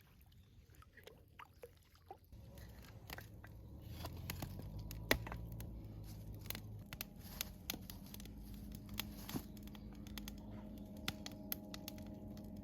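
A low, steady engine drone that swells from a couple of seconds in and then holds, with scattered small clicks and scrapes of handling close by.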